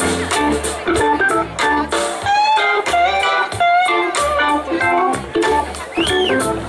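Live blues-rock band playing, with a Hammond organ to the fore over guitar, bass and drums.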